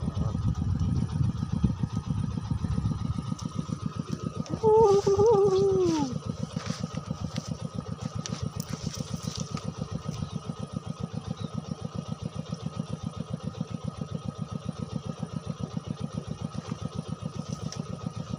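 Small motorcycle engine running, louder and rougher for the first few seconds, then settling into a steady, rapid idle. About five seconds in, a brief wavering tone falls off in pitch.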